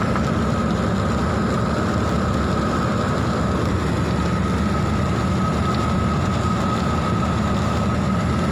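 Steady low rumble of a vehicle driving on a wet road, heard from inside the cabin, with a thin, steady high whine above it.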